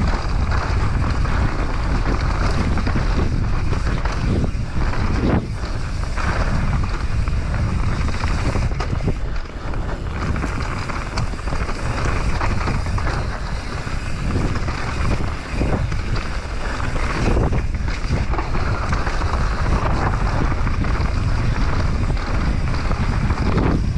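Wind rushing over an action camera's microphone while a mountain bike descends a dirt trail at speed, with the tyres rolling on the dirt and occasional knocks from the bike over bumps.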